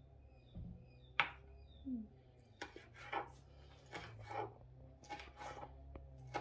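Kitchen knife chopping on a plastic chopping board, dicing red pepper: a string of irregular sharp taps, about one or two a second.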